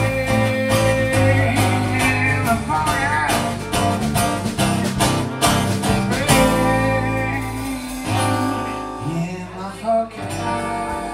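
Live jazz-blues band playing the closing instrumental bars of a song: strummed acoustic guitar over sustained keyboard chords, with a lead melody line that bends in pitch. It gets gradually quieter toward the end.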